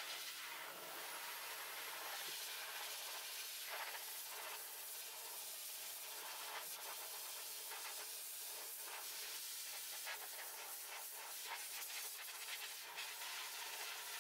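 Dog grooming blow dryer forcing air out of its hose nozzle onto a German Shepherd's damp coat: a steady hiss with a faint hum under it.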